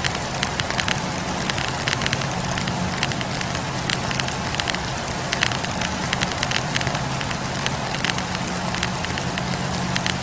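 Wood campfire burning: frequent, irregular crackles and pops from the burning logs over the steady low rush of the flames.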